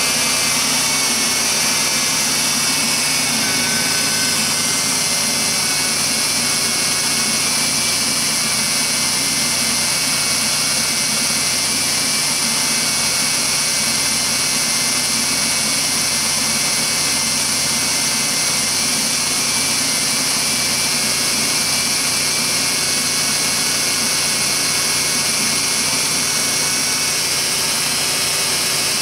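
Fourth-generation Ford Taurus V6 engine idling steadily with the hood open, a constant rushing noise, run after a coolant hose clamp repair to check for leaks.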